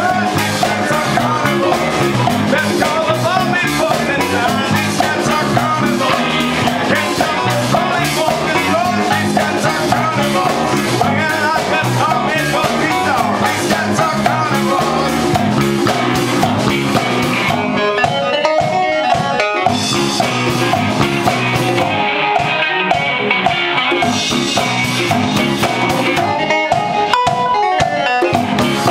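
A funk band playing live in a rehearsal room: drum kit, electric bass, electric guitar and congas locked in a groove, instrumental with no vocals. The bright top of the mix drops away in a few short breaks in the last third.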